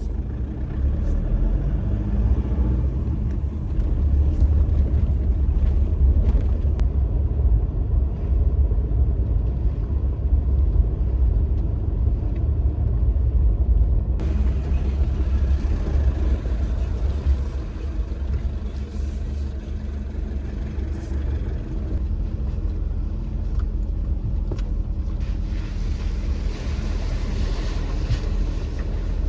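A vehicle driving along with a steady low rumble of engine and wheels; a higher hiss joins in about halfway through.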